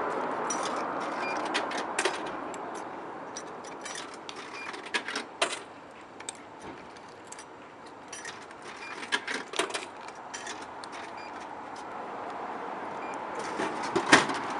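Coins being fed one at a time into a drink vending machine's coin slot: a string of irregular metallic clinks and clicks, with a louder knock near the end.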